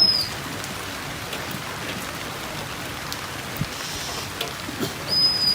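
Steady rain falling, an even hiss. A brief high whistling tone sounds right at the start, and another is held for about half a second near the end before dipping.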